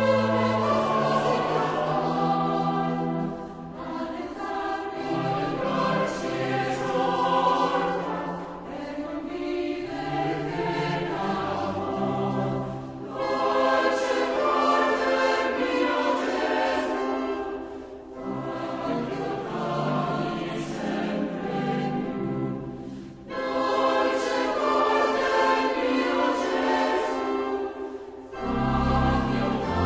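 Choral music: a choir singing in long phrases, each breaking off every few seconds, over held low notes.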